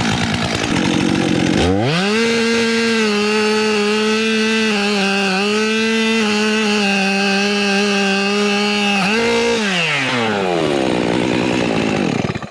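New chainsaw's engine idling, then throttled up about two seconds in and held at high revs for about seven seconds, with small dips in pitch. It is then let off, glides back down to idle, and the sound drops off sharply near the end.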